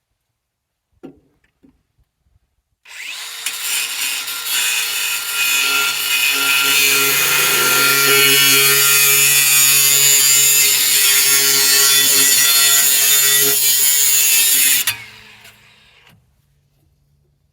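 Angle grinder cutting steel on an old combine: it starts about three seconds in, runs steadily with a high hiss over a motor hum, and cuts off suddenly about fifteen seconds in as the motor winds down.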